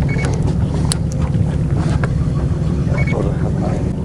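Boat's motor running with a steady low hum, with a few faint ticks and two short high beeps, near the start and about three seconds in.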